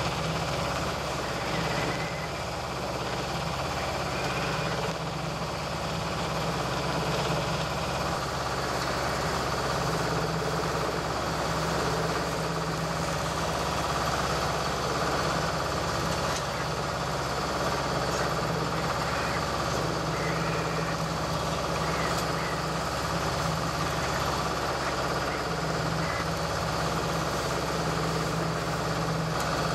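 Volvo Penta MD2B two-cylinder marine diesel running steadily at cruising speed, over a constant rush of water and wind.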